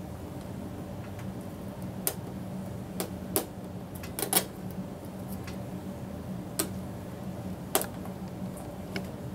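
Fingers pressing stickers onto a hard plastic Beyblade stadium: a handful of light, irregular clicks and taps on the plastic over a steady low hum.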